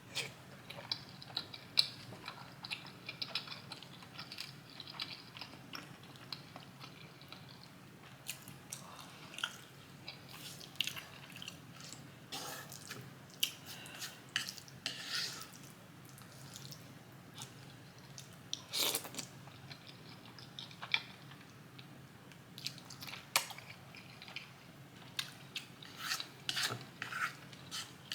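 A person chewing and biting food close to the microphone: irregular wet mouth clicks and smacks, with scattered sharp taps.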